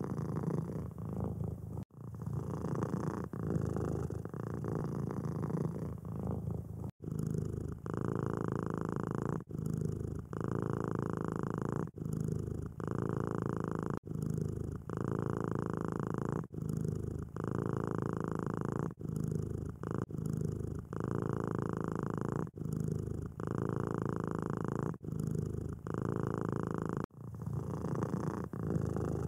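Domestic cats purring close to the microphone, with the sound changing abruptly at a few cuts. In the longest stretch the purr swells and dips with each breath, about every two and a half seconds.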